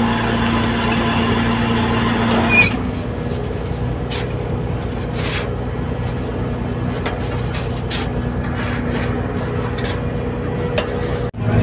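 A fishing boat's diesel engine and deck machinery running with a steady, low hum, under scattered knocks and clatter of work on deck. A sharp click comes about two and a half seconds in, and the sound drops out for a moment near the end.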